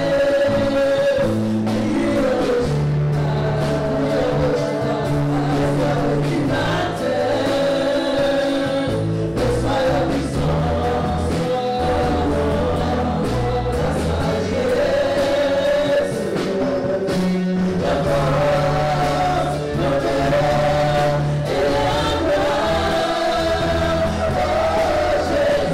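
Congolese gospel music: a choir of voices singing over a band with a steady bass line and beat.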